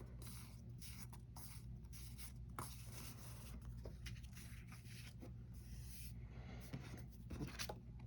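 Paper and card inclusions being handled: faint rustling and rubbing of sticker sheets and cards, with a few light taps and ticks.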